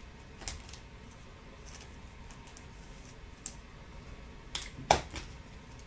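Light clicks and taps of trading cards being handled, a few scattered ones and the loudest near the end.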